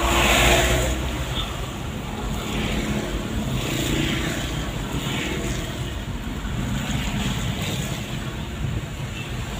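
Vehicle engine and road noise heard from inside the cab while creeping along in slow traffic, a steady low rumble with a few brief swells of hiss from tyres on the wet road.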